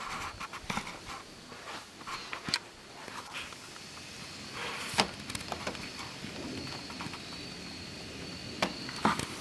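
Handling noise and footsteps: scattered clicks and knocks, the loudest about five seconds in and near the end. A steady high-pitched insect drone comes in around the middle and carries on.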